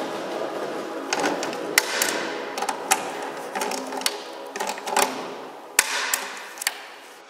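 Ratchet wrench clicking rapidly as a bolt is turned in the gearbox casing, with sharper metal clinks of the tool now and then.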